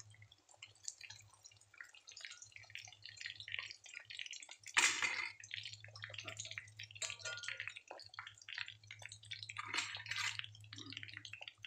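Hot oil crackling and sizzling as round battered fritters deep-fry in a wok, with louder bursts of sizzle about five seconds in and again near ten seconds.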